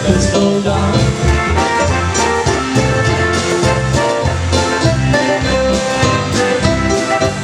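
Live polka band playing an instrumental passage with a steady, regular beat.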